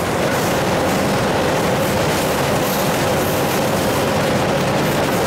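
Alco WDM3A diesel locomotive running at speed, heard inside its cab: the steady drone of the 16-cylinder ALCO 251 engine mixed with the rattle of the running gear, with a faint steady whine over it.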